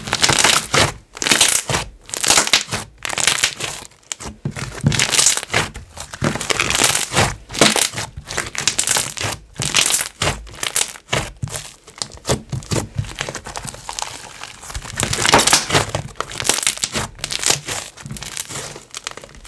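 Inflated cream slime being squeezed, stretched and folded by hand, giving a dense run of irregular crackling bubble pops.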